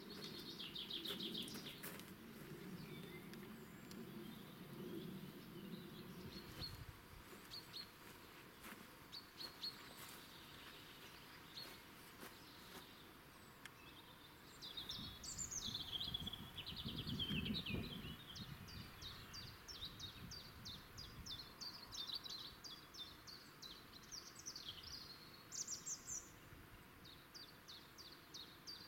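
Small songbirds singing and chirping, faint, with fast series of repeated high notes in the second half. A low rumbling noise runs under the first several seconds and comes back briefly around the middle.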